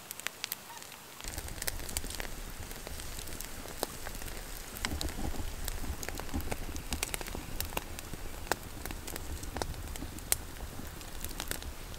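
Wood campfire crackling, with irregular sharp pops and snaps. A low rumble comes in about a second in and continues under the crackling.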